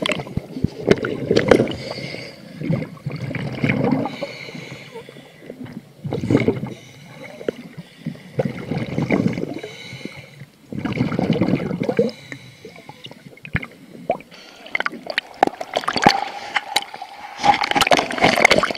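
Scuba regulator breathing heard through an underwater camera: bursts of exhaled bubbles gurgling and rumbling every two to three seconds, with a fainter hiss between them.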